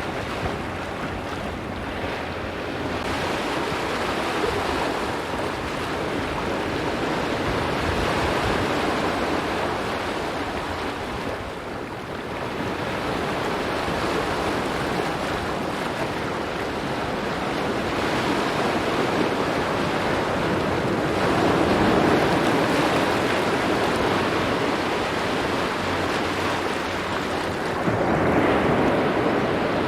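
Waves breaking and washing over a rocky shore, a continuous surf that swells and eases every few seconds, with the biggest surges about two-thirds of the way in and near the end. Some wind buffets the microphone.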